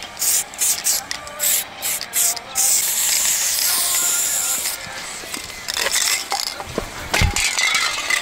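Aerosol spray-paint can shaken, its mixing ball rattling about two or three times a second. About two and a half seconds in it is sprayed in one long hiss of about two seconds. Then come quieter scraping and handling noises and a low thump near the end.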